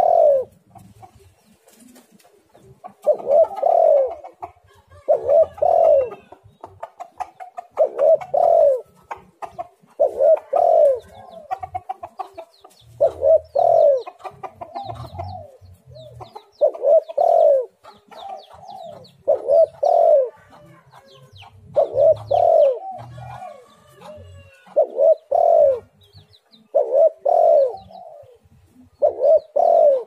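Spotted dove cooing its phrase of a few quick, falling coos, repeated about a dozen times, one every two to three seconds. Faint high chirps of other small birds sound between the phrases.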